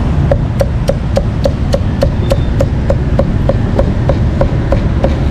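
Meat cleaver chopping pork on a chopping block in a steady, even rhythm of about three and a half strokes a second. Each stroke is a sharp knock with a short ringing note, starting about a third of a second in.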